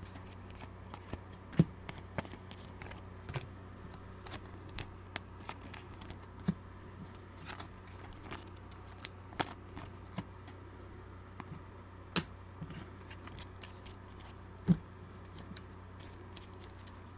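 Trading cards being handled and flipped through by hand: irregular small clicks and snaps of card stock, a few sharper ones standing out, over a steady low hum.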